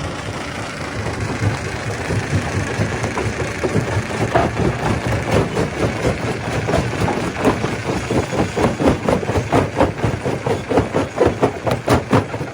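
Stone crusher machine running: a steady heavy mechanical drone, joined about four seconds in by a regular knocking, about three or four knocks a second, that grows louder toward the end.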